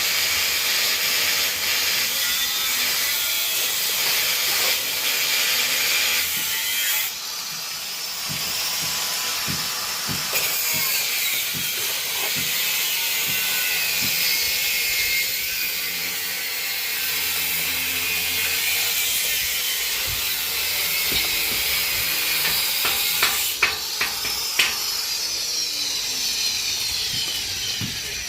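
Metalworking noise from a stair repair: a steady, harsh, high hiss, with a few sharp cracks about three quarters of the way through and a falling whine near the end.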